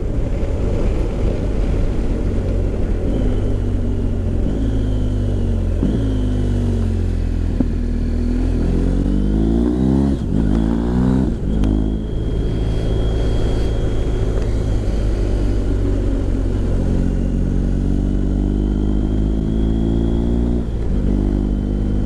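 BMW R1250GS Adventure's boxer twin running through a new aftermarket Remus Hawk silencer while being ridden. The revs climb and drop back several times, with sudden falls in pitch at the gear changes.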